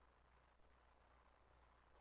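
Near silence: a faint steady low hum under light hiss.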